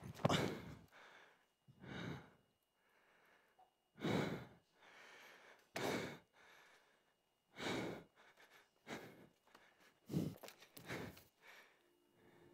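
A person breathing heavily: long breathy exhales about every two seconds, coming quicker near the end.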